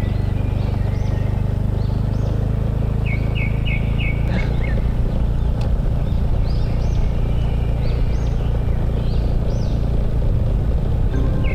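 Small motorbike engine running steadily under way, with road and wind noise; its note shifts about four seconds in. Birds chirp repeatedly over it.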